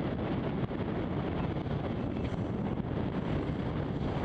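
Steady low rushing noise with no distinct knocks or tones, heard inside a small sailboat's cabin at sea.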